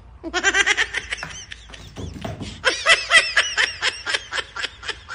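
A person laughing: a quick run of short, high-pitched 'ha' pulses that starts about a quarter second in and keeps going in bursts.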